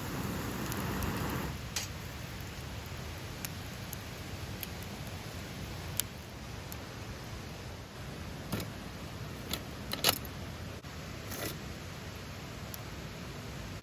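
Wood campfire burning with a steady low hiss and rumble, broken by a scattering of sharp crackles and pops, the loudest about ten seconds in.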